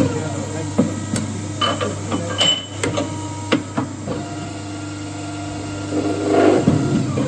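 Double-head automatic bar-end chamfering machine running with a steady motor hum, steel bars knocking and clanking as they are fed and clamped between the heads. A louder, denser stretch of machining noise comes about six seconds in.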